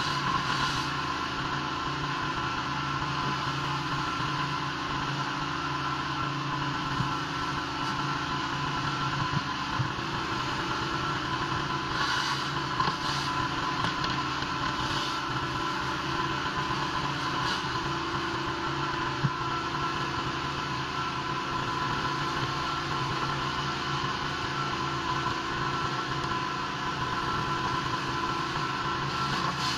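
Pressure washer running steadily, a constant mechanical drone with a few faint clicks along the way.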